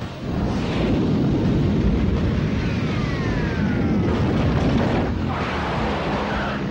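Cartoon sound effect of an alien spaceship flying in low: a loud, dense rumbling roar with a falling whistle about three seconds in.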